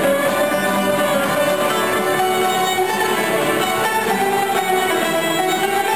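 Live ceilidh band playing a march tune: two fiddles carry the melody over guitar and other plucked strings.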